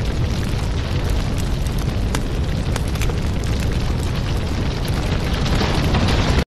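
Fire burning: a steady low rumble with scattered crackles.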